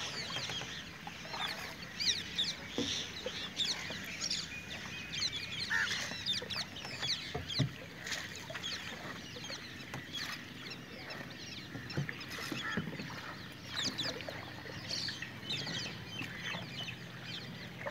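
A chorus of many birds chirping and calling, with short overlapping calls throughout.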